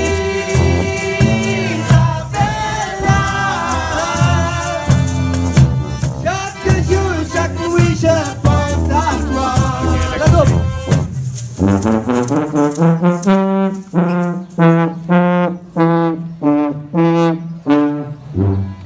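Street band of sousaphone, bass drum with cymbal, melodeon and saxophone playing an upbeat tune, with shakers rattling. About twelve seconds in, the full band drops out, leaving a single pitched part playing short repeated notes, about two a second.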